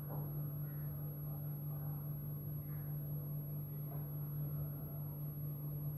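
A steady low mechanical hum, even and unbroken, with a few faint soft touches over it.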